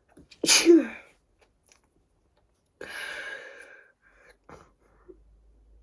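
A person sneezing once, sharp and loud, about half a second in. A longer, quieter breathy sound follows about two seconds later.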